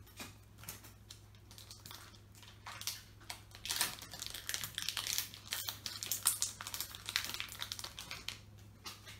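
Foil wrapper of a trading card booster pack crinkling as it is handled and opened, in dense irregular crackles that are loudest in the middle of the stretch.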